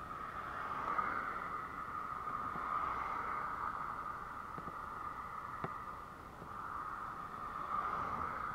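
Muffled, steady hiss of wind and road noise on a camera riding on a moving bicycle. It swells and eases a few times, with a single small click a little past the middle.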